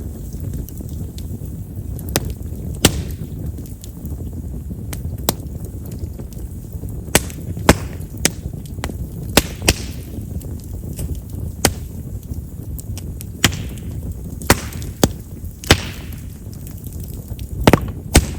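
Campfire of chestnut firewood crackling: a steady low rumble of flames with a dozen or more sharp, irregular pops and a few short hisses. Chestnut wood is known for popping because of its large vessels.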